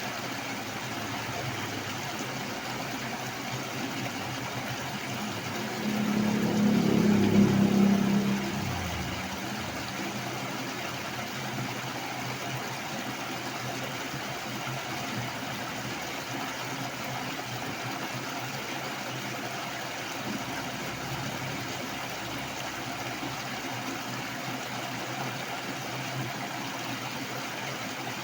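Steady, heavy rush of flowing water in the rainy season. About six seconds in a louder low hum rises over it and fades out by about nine seconds.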